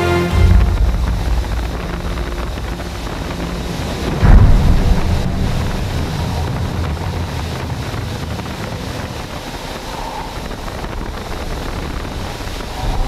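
Steady rush of airflow and jet engine noise inside the cockpit of a Northrop F-5 fighter jet in formation flight, with wind buffeting the microphone. A loud low surge comes about four seconds in, then the noise settles back to a steady rush.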